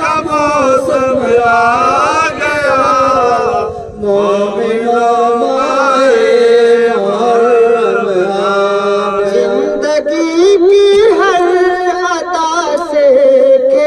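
Male voice chanting an Urdu noha, a Muharram lament, in long wavering held melodic lines, with a brief break about four seconds in.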